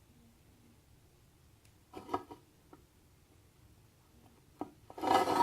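A person's voice, heard briefly about two seconds in and again louder near the end, over faint room tone.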